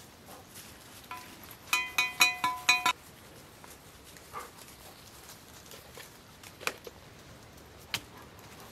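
A quick run of about five sharp, ringing metal clinks, about a second and a half long, starting about a second in: a steel setting tool knocking against a dog-proof raccoon trap as it is set. A few faint clicks follow later.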